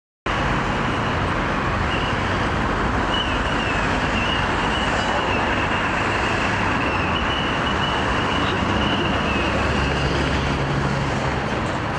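Steady urban traffic noise, an even wash of road noise with a thin high whine running through it; a vehicle's low engine hum comes up near the end.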